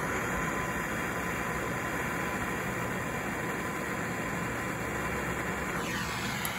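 Turbo torch flame hissing steadily while heating the seized, pressed-on spline collar of a rear wiper arm; the hiss cuts off abruptly at the very end.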